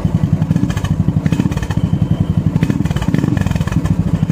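Royal Enfield Bullet's single-cylinder four-stroke engine running steadily at idle, heard close to its aftermarket K-Indori silencer as a rapid, even exhaust beat.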